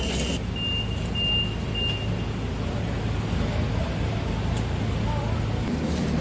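City street traffic rumbling steadily, with three short, evenly spaced high electronic beeps in the first two seconds.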